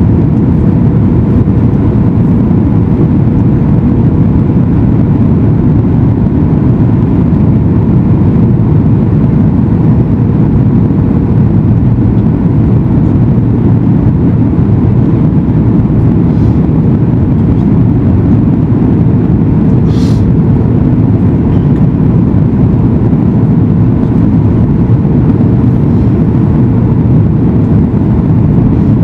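Airliner cabin noise inside a Boeing 737 MAX 8 in flight: a loud, steady low rumble of its CFM LEAP-1B engines and rushing air, with a faint steady hum over it. A brief click about twenty seconds in.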